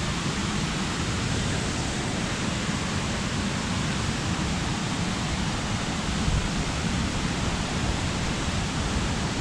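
Waterfall rushing steadily, an unbroken hiss of falling water.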